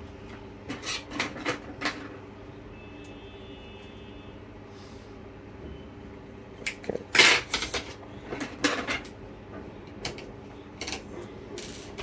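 Clicks and knocks from test leads being handled and an alligator clip being fixed onto a laptop motherboard, in several short clusters, over a steady low hum.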